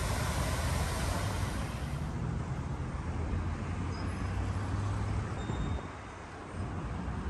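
Steady city traffic noise with a low engine drone, which drops away about six seconds in. For the first couple of seconds a fountain's splashing water adds a hiss on top.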